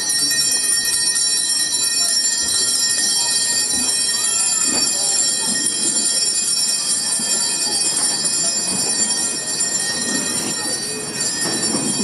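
Small altar bells ringing continuously during the benediction blessing, a steady shimmer of many high ringing tones.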